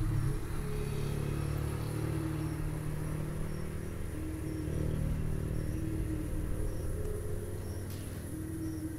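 A low droning music bed with a slow, repeating pattern of short notes, the kind of dark ambient background music laid under horror footage.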